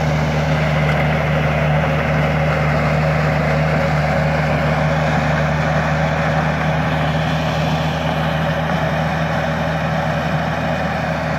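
Gafner Duo manure spreader running steadily as it works across a slope flinging manure, with a steady engine hum under the noise of the machine. It grows a little fainter near the end as it moves away.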